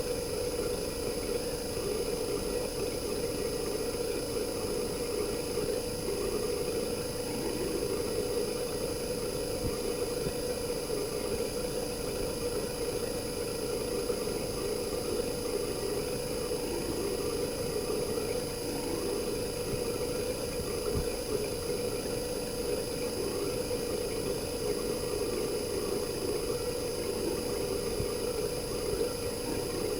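RECHI single-rotary inverter compressor (43W26SH) of a Sharp AU-J25XY air conditioner outdoor unit running steadily, recorded raw. It makes an even drone with faint steady high-pitched whine tones above it.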